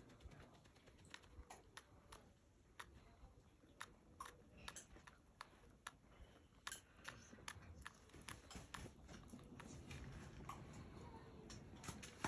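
Faint, irregular clicks of hens' beaks pecking, several close together at times, over a quiet background.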